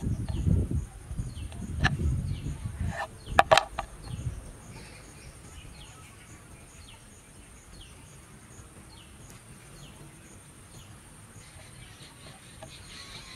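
Low rumbling knocks for the first four seconds or so, with a sharp click about three and a half seconds in. Then a quieter background of short, high chirps repeating about once or twice a second, like small birds, over a steady high whine.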